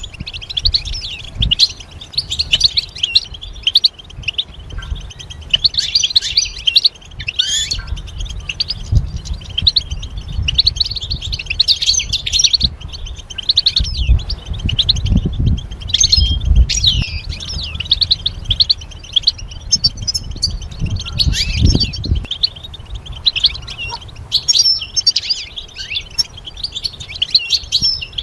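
European goldfinch singing: a long run of rapid, twittering chirps in quick phrases with brief breaks between them. Dull low thumps come and go beneath the song, heaviest around the middle.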